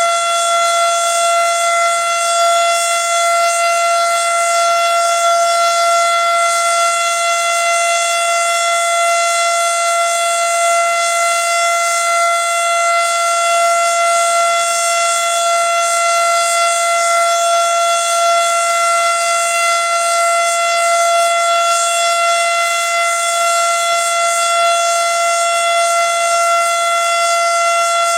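Federal Signal Model 7 electromechanical tornado siren sounding its steady alert signal for a monthly test, holding one pitch without rising or falling.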